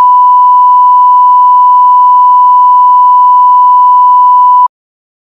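1 kHz line-up test tone, the reference tone laid with colour bars at the head of a video master for setting audio levels. One steady, loud pure tone that cuts off abruptly about four and a half seconds in.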